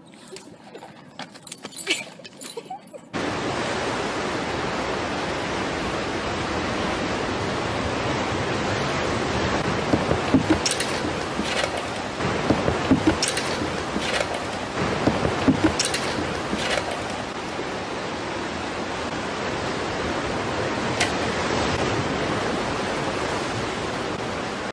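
A steady, loud rushing noise cuts in abruptly about three seconds in and holds level, with a handful of short sharp knocks over it.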